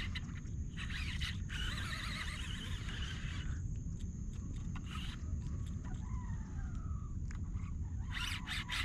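Steady wind rumble on the microphone, with a few short bursts of hissing noise and a faint falling call a little after the middle.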